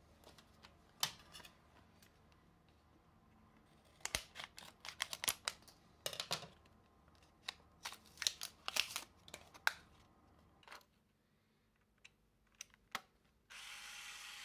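Scissors snipping and a plastic battery blister pack crackling as it is cut open, a run of sharp crackles and clicks. Then a few small clicks, and near the end a steady electric whir about a second and a half long from the compact film camera's small motor as it powers up on the new battery.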